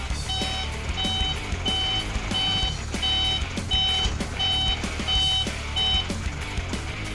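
Truck reversing alarm beeping steadily about one and a half times a second over a low engine rumble, stopping about six seconds in.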